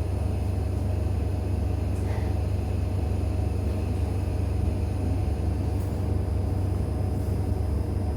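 MAZ-303E23 battery-electric bus running, heard from inside the cabin: a steady low rumble with faint, steady high-pitched tones over it.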